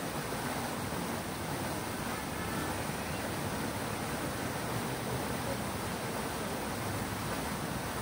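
Fountain water splashing and pouring in a steady, unbroken rush.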